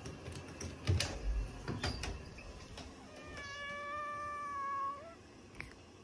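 A few clicks and knocks as a door knob is turned and a door opened. About three seconds in, a cat gives one long meow, held on one pitch for nearly two seconds and rising briefly at the end.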